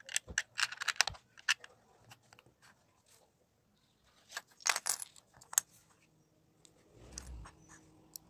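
Small LEGO plastic pieces clicking and clattering as they are handled and pressed into place: a burst of quick sharp clicks at the start and another about four seconds in.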